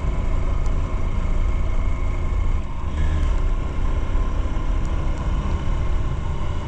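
Motorcycle engine running steadily while riding at road speed, with a heavy low rumble of wind on the microphone.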